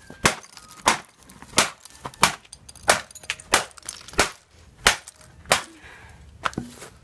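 An IBM ThinkPad laptop being struck hard over and over, about ten blows in a steady rhythm of roughly three every two seconds, each a sharp crack of plastic. The last blow is lighter.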